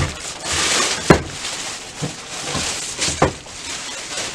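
Plastic bag rustling and crinkling in bursts as it is pulled off a printer, with two sharp knocks, about one second and three seconds in.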